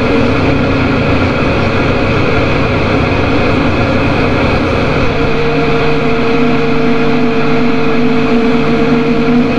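Loud drone-noise music: a dense, rumbling wash of noise with several held tones, new ones coming in about five seconds in.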